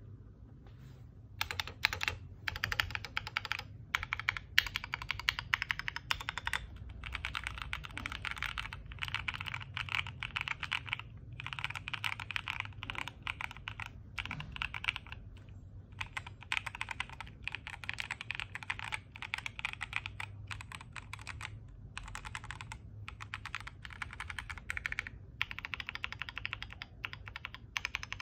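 Fast typing on a Black Diamond 75 mechanical keyboard with DR Rapid Ice linear switches: dense runs of keystrokes broken by short pauses.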